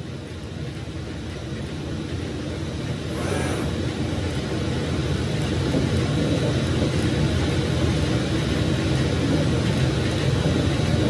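Powell CNC DCT3 digital cutting table running as its head moves and cuts printed sheet material: a steady machine rumble and hiss that grows louder over the first five seconds or so, then holds steady. A brief high hiss comes about three seconds in.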